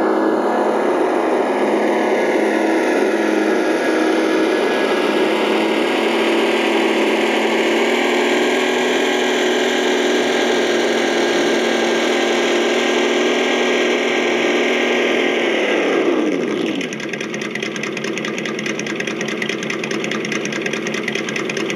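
Simulated truck engine sound from the RC truck's ESS Dual+ sound module, played through its onboard speaker. It holds a steady driving note, then about 16 seconds in the pitch falls quickly and it settles into a quieter, fast-pulsing idle as the truck stops.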